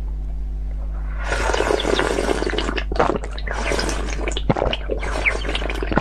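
Close-miked slurping of liquid from a small glass cup: a wet, crackly slurping noise that starts about a second in and runs on with short breaks.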